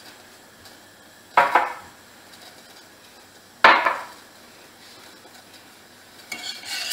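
Two sharp knocks about two seconds apart, each dying away within half a second. Near the end a metal spoon starts scraping around in a steel saucepan of sugar syrup.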